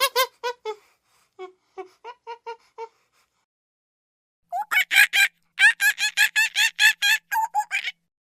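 Monkey giving rapid series of sharp, repeated chattering calls, about four or five a second. A run fades out just after the start, a softer run follows about a second and a half in, and a louder, longer run comes about four and a half seconds in.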